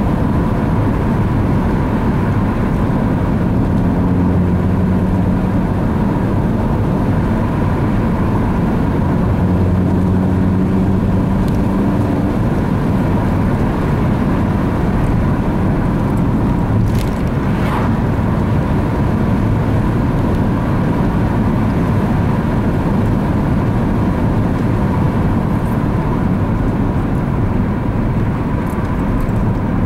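Steady engine and tyre-on-road noise heard inside a moving Opel Astra coupé cabin, with the engine's hum showing through the rumble for the first several seconds. Two brief clicks sound about seventeen seconds in.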